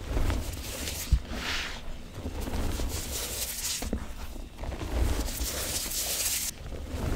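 Hands squeezing and crushing clumps of gym chalk reforms and cornstarch powder in a bowl: soft crunching and squeaking of the packed powder in several squeezes, with a couple of light knocks.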